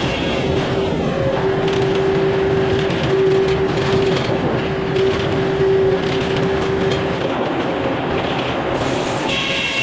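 Sawmill machinery running steadily: a loud, even mechanical noise with a steady whine that fades out about two-thirds of the way through.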